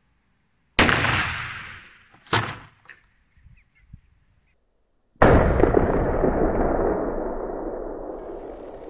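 AK rifle shots: a sharp crack that rings out and fades over about a second, and a second sharp bang a moment and a half later. About four seconds after that comes a long, duller boom that fades away slowly over several seconds.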